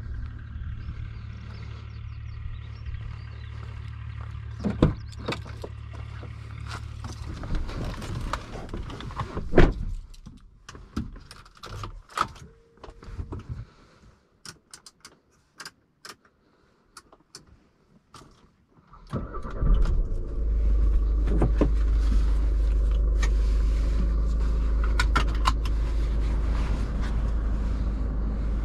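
Scattered clicks and knocks over a low hum, then about two-thirds of the way in the Audi A1's 1.6 TDI four-cylinder diesel engine starts and settles into a steady idle.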